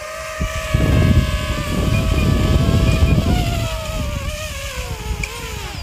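DJI FPV drone's propellers whining close by as it comes down to be caught by hand, with heavy rumbling prop wash on the microphone through most of it. The whine sinks in pitch near the end.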